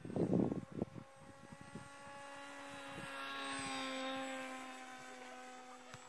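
HobbyKing Bixler 2 electric RC plane's motor and pusher propeller whining steadily as the plane makes a pass: the tone swells for about three seconds, peaks and fades away. A few short thumps come in the first second.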